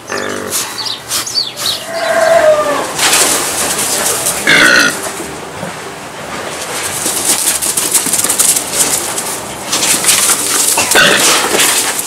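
Farm animal calls: a few short cries scattered over a steady noisy background.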